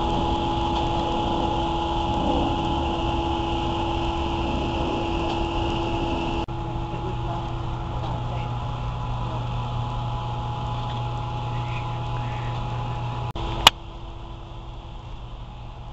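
Steady mechanical hum with a few constant pitched tones. About six and a half seconds in it changes abruptly to a lower drone. Near the end a single sharp click is the loudest sound, and the hum is quieter after it.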